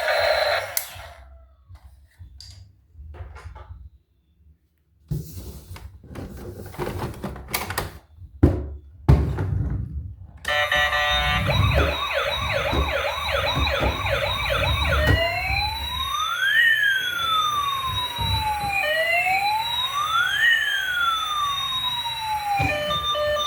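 A few clicks and knocks, then a toy emergency vehicle's electronic siren starts about ten seconds in. It first gives a fast yelp of rapid repeated sweeps, then after about five seconds switches to a slow wail that rises and falls twice.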